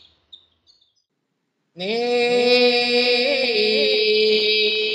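Brief silence, then a single voice starts a chant about two seconds in. It is held mostly on one note, with a few small melodic turns.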